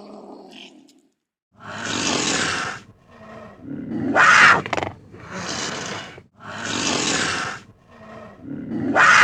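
A large animal roaring and growling in loud, harsh calls about a second long. The same sequence of four calls plays twice over.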